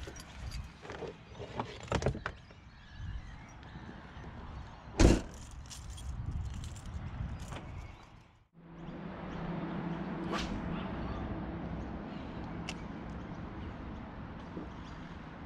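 Gear knocking and clattering in a hatchback's open boot, then one loud thump about five seconds in from the tailgate slamming shut. After a cut about eight seconds in, a steady low outdoor hum.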